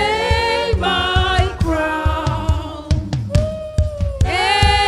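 Gospel worship song sung by a group of voices in long held notes, with a steady low beat underneath.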